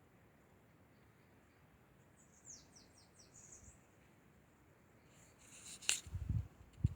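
A small bird singing a quick run of short, high notes, each falling sharply in pitch, for about a second and a half. Near the end a sharp click and a few low thuds.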